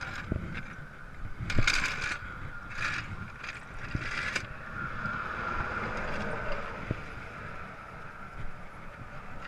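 Steady traffic rumble and wind noise at a highway roadside, with a few short scraping bursts between about one and a half and four and a half seconds in.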